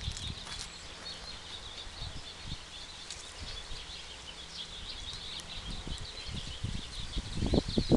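Outdoor ambience: a steady high chirping chorus, with low rumbling thumps growing louder near the end.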